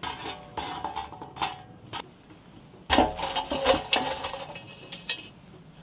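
Metal tool scraping and clinking charcoal briquettes on a steel fire plate, then a cast-iron Dutch oven set down on the hot coals with a clank of metal about halfway through.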